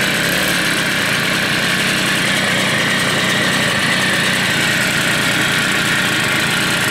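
Small two-stroke moped engine running steadily at low speed with its choke stuck on, so it won't rev up.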